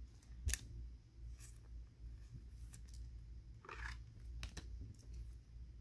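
Light handling noises from a trading card held in the fingers: a few faint clicks and a short rustle about four seconds in, over a low steady hum.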